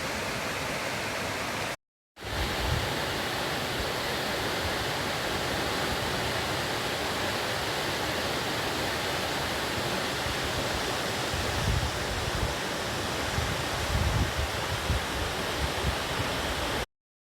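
Waterfall: a steady rush of falling water. It cuts out briefly about two seconds in, and uneven low rumbling gusts come and go near the end.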